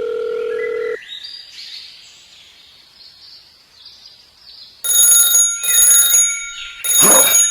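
Electronic alarm-like tones: a steady beep that cuts off about a second in, then from about five seconds loud pulsed electronic ringing in half-second bursts.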